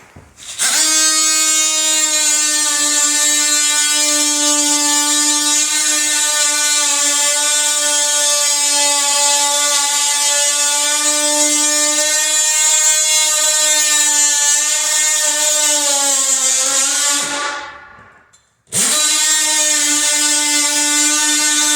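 Oscillating multi-tool running with a steady high buzz as its blade plunges into the work, the pitch sagging slightly near the end of the first cut before it stops. After about a second's pause it starts again for the second cut.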